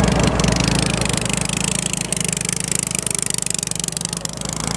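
Boat engine running steadily at cruising speed, a low even hum, over a steady hiss of water along the hull.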